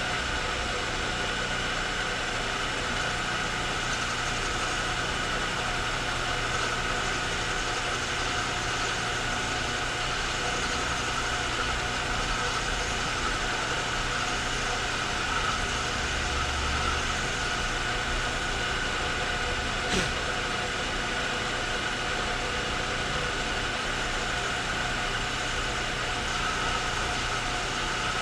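Machine tool running steadily, with a constant hum and whine, while it cuts a thread repair in a zinc die-cast carburetor float bowl. A single sharp click comes about twenty seconds in.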